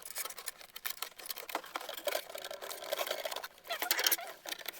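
Hands handling plastic toy pieces and packaging: a run of small clicks, taps and rustles.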